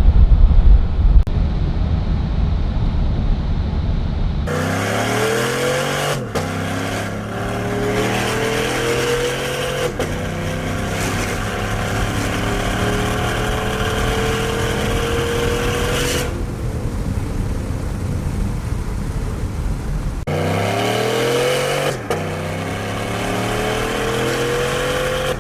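Chevy Silverado pickup engine accelerating through its gears: the engine note climbs, drops back at each upshift and climbs again. This happens in two runs, after a few seconds of low rumble.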